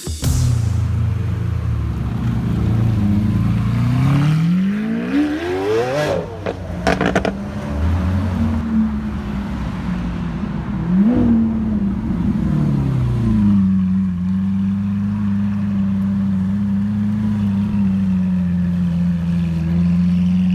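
Car engine revved hard once, rising steeply and falling back, blipped briefly a few seconds later, then settling into a steady idle.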